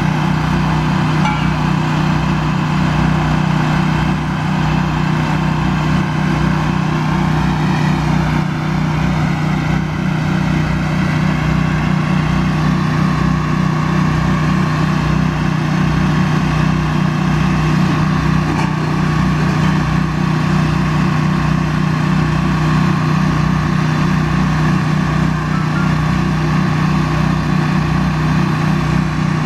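A truck-mounted crane's engine running steadily at an even speed while the crane lifts a load, with a constant hum.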